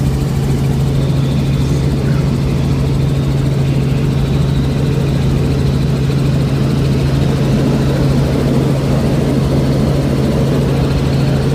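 Robinson R44 Raven II helicopter heard from inside the cabin in flight: its six-cylinder Lycoming piston engine and rotors give a steady low hum with a rushing noise over it.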